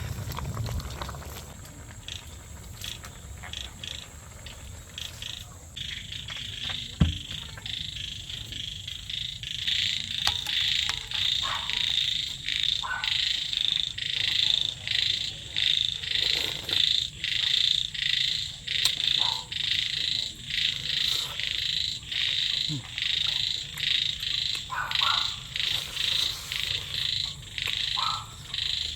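A chorus of frogs calling, starting about six seconds in and settling into a regular pulsing rhythm. There is a single sharp knock about seven seconds in.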